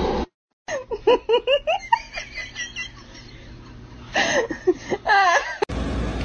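A person laughing in a quick run of short bursts, about four a second, then laughing again about four seconds in.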